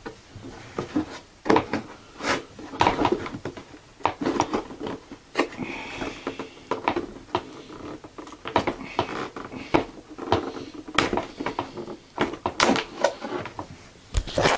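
Irregular knocks, clicks and scrapes of hands working a glued plywood frame piece loose from a model jet's fiberglass fuselage, the glue softened with a heat gun.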